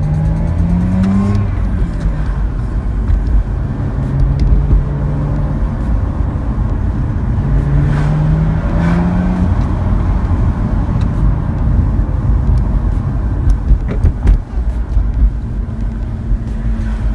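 Mazda RX-8's 13B twin-rotor rotary engine pulling the car along, rising in pitch as it revs up near the start and again about eight seconds in, and holding steadier in between.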